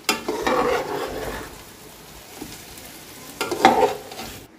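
Metal spatula stirring and scraping a thick chicken-and-okra masala around a metal cooking pot, in two spells: a longer one at the start and a short one near the end. The food sizzles in the hot pot as it is turned.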